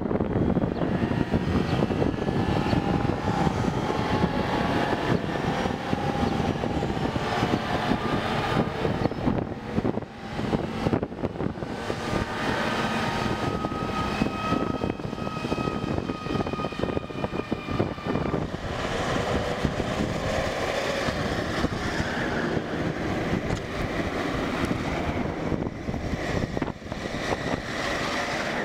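A convoy of eight-wheeled armoured vehicles driving past one after another: a continuous heavy rumble of diesel engines and tyres, with a whine rising above it from each vehicle as it passes. Lighter military jeeps pass near the end.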